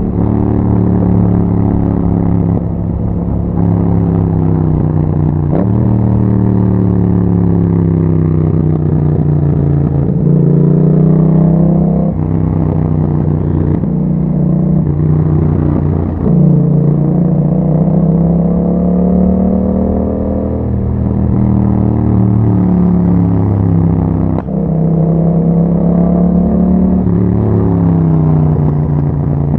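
Yamaha MT-07's 689 cc parallel-twin engine running through an Akrapovic exhaust while being ridden. Its note rises and falls over and over as the rider accelerates, changes gear and rolls off the throttle.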